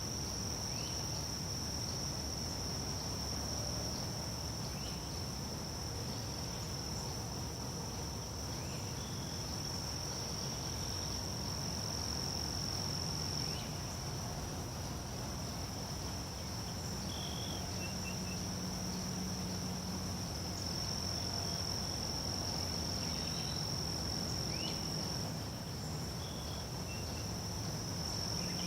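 Steady, high-pitched chorus of insects such as crickets, running without a break, with faint short chirps here and there over a low background hum.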